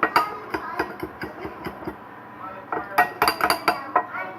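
Dishes and utensils clinking: a few sharp taps in the first half-second, then a quick run of clinks around three seconds in.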